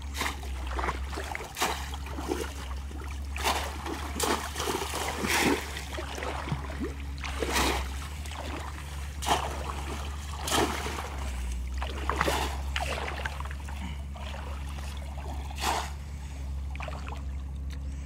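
Irregular splashing in shallow water as bamboo polo plunge baskets are pushed down and lifted and hands churn the water inside them to catch fish. A steady low hum runs underneath.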